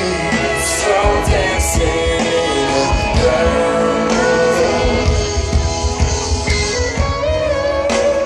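Live blues-rock band playing loudly through a concert sound system, heard from within the crowd. A lead electric guitar bends and holds notes over bass and drums.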